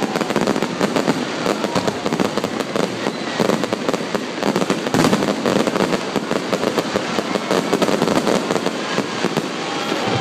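Fireworks finale barrage: aerial shells bursting and crackling in rapid, overlapping succession, one report crowding the next with no pause.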